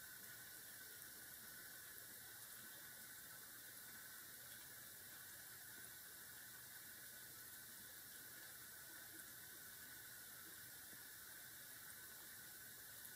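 Near silence: steady hiss of the recording, with a few faint ticks.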